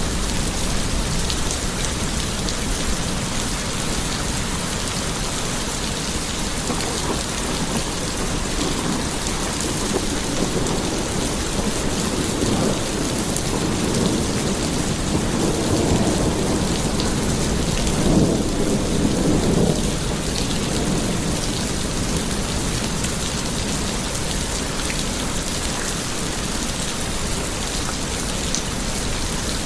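Steady heavy rain, with low rolling thunder swelling and fading about halfway through.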